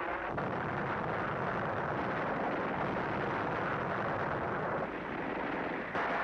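Steady, dense rumble of a battle sound-effects track, with no single shot or blast standing out; it changes abruptly about a quarter second in and again near the end.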